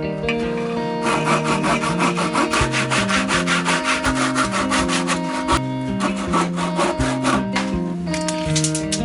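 Wood being sawn by hand in quick, even strokes, starting about a second in and stopping near the end, over background guitar music.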